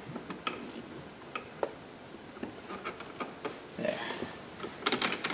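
Light scattered clicks and ticks of a screwdriver working against the plastic side-vent trim as its screws are driven back in, with a quick run of rapid clicking near the end.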